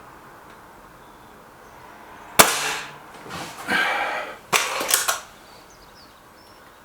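Stoeger RX20 S2 Suppressor break-barrel air rifle fired once, a sharp crack about two and a half seconds in. It is followed by rattling and a few sharp clicks from the rifle being handled and reloaded for the next shot.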